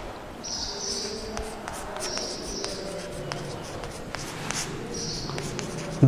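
Chalk writing on a blackboard: a run of small taps and scratchy strokes, with three short high-pitched scrapes spread through.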